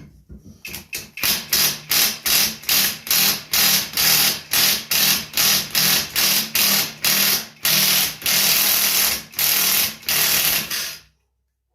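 Power tool run in short, rapid trigger bursts, about three a second, that stop suddenly near the end, working a stubborn fastener loose.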